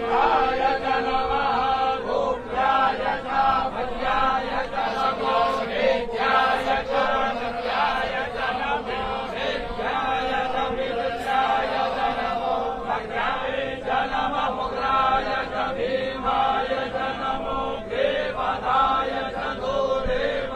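Male Hindu priests chanting mantras continuously during a temple puja, without pause.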